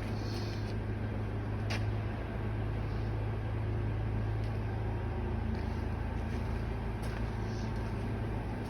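Steady low mechanical hum, with a single sharp click about two seconds in.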